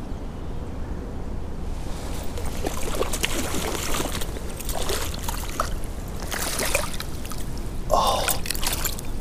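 A large hooked brown trout thrashing and splashing at the creek surface as it is played in to the landing net, a run of irregular splashes starting about two seconds in.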